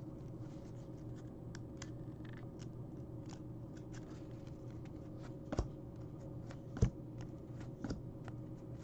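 Hockey trading cards being flipped through by hand: soft scraping and clicking of card edges against each other, with a few sharper clicks in the second half, over a low steady hum.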